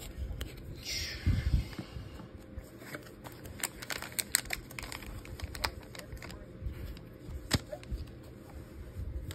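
Handling noise from a trading-card presentation box and the pack inside it. A short sliding swish comes about a second in, followed by scattered small clicks and taps as the pack is lifted out of the box.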